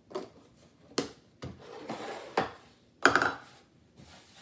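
A baking powder container being capped and handled on a wooden countertop: a few light knocks with a rubbing scrape between them, and the loudest knock about three seconds in as the container is set down.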